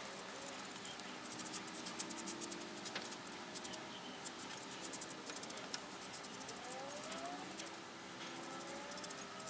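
Hand rubbing oil finish into rough bark-covered root wood, giving quiet scratching and clicking in clusters.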